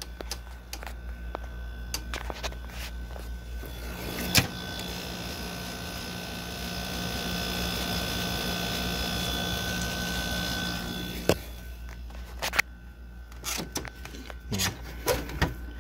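Window air conditioner running with a steady compressor hum and a faint whine. A click about four seconds in brings a louder rush of air, which stops with another click about eleven seconds in. The lower hum and a few handling clicks remain after it.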